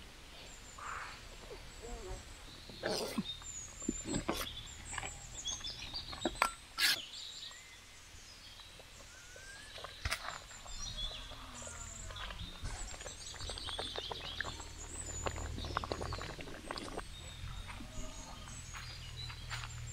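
Outdoor ambience of birds chirping and calling, with several sharp knocks and clatters, some of them likely from the metal cooking pot being handled, over a low steady rumble.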